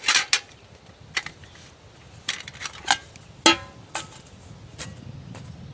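Metal cookware and grill parts clanking as they are handled: about eight sharp knocks at uneven intervals. The loudest, a little past the middle, rings briefly.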